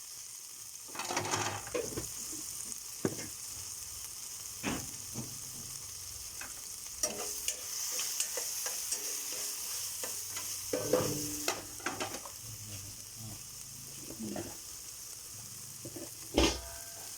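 Garlic, onion and tomatoes sizzling in hot oil in a pan while a utensil stirs them, knocking and scraping against the pan at irregular moments. There are louder clatters about a second in, around eleven seconds and near the end.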